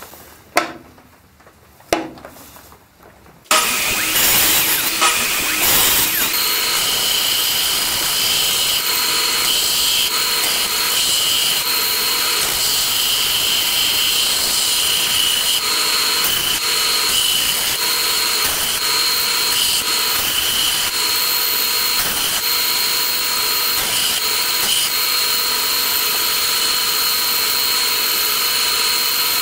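A few light knocks, then about three and a half seconds in a bench belt-and-disc sander starts up and runs steadily, with a small piece of wood held against the belt being sanded to shape.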